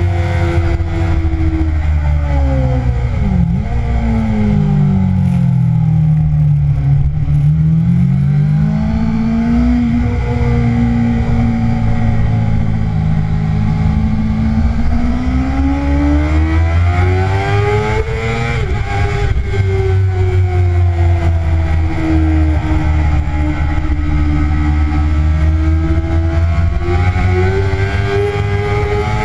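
2009 Kawasaki ZX-6R's 600 cc inline-four sport-bike engine heard from onboard at track pace: revs fall steeply under braking about three seconds in, pull back up out of the corner, climb to a sudden drop at a gear change a little past halfway, then sag and rise again through the next bends, over a steady low rumble.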